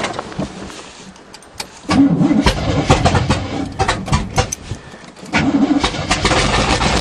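Starter cranking the 1977 GMC truck's 400 small-block V8 in two goes, the first starting about two seconds in and the second just after a short pause near five seconds. The engine turns over without catching: after months sitting it is short of fuel, and its carburetor is being primed with gas poured in by hand.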